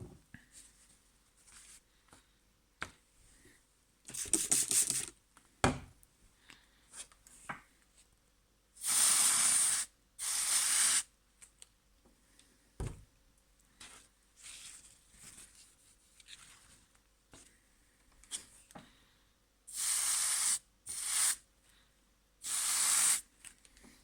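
Hand spray bottle squirting water in five bursts of about a second each, two close together and then three more. Short handling clicks and rustles come in between.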